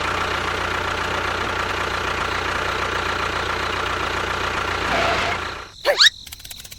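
A motor running steadily, which then stops about five and a half seconds in. A short rising whistle-like sweep follows.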